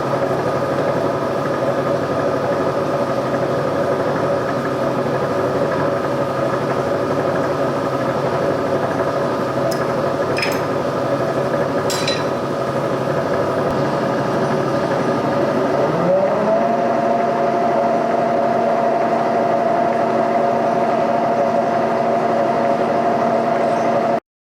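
Boring machine running steadily as its boring bar cuts out worn, egg-shaped holes in a steel suspension frame. About two-thirds of the way through the machine's pitch rises to a new higher steady speed, with a couple of light clicks before that, and the sound cuts off abruptly near the end.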